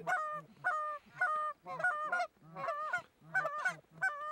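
Canada goose honks and clucks called rapidly over and over, about two a second, each one breaking from a low note up to a high one.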